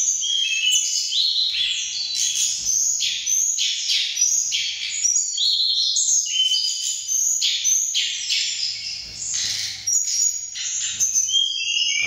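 Tledekan gunung songbirds in their cages singing hard against one another, several birds at once. Their rapid high chattering phrases overlap without a pause. All three are worked up and competing in song.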